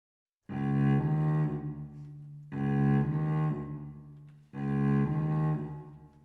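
Music: three similar low, sustained phrases of about two seconds each, the first starting about half a second in, each swelling and then fading.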